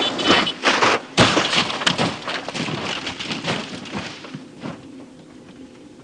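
Rally car rolling over in a crash: a quick series of crashing, crunching impacts of the bodywork hitting the ground, the hardest about a second in, thinning out and dying away after about four seconds.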